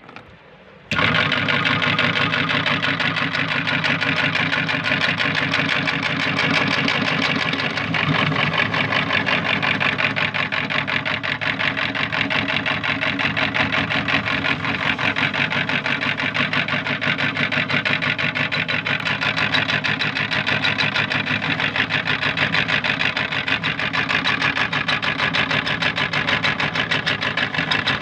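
Electric meat grinder motor switching on about a second in and running steadily with an even, fast pulsing hum.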